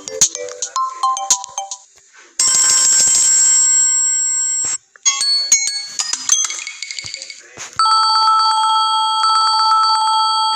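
Samsung Galaxy A71 ringtones previewed one after another, each cut off after a few seconds when the next is picked. A melody of short electronic notes ends about two seconds in, then comes a steady held chord, then a quick run of short notes, and last a fast-trilling chord like a phone ringing.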